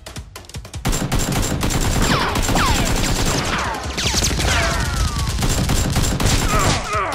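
Rapid, continuous automatic gunfire sound effects, a dense volley of shots that starts about a second in and stops shortly before the end. Several falling whistling whines run through the volley.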